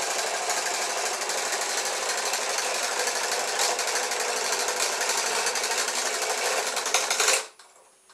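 Electric vibrating-toothbrush motor in a home-made toy paddle boat, running steadily as it drives a cam that wiggles the boat's flipper, then cutting off suddenly near the end.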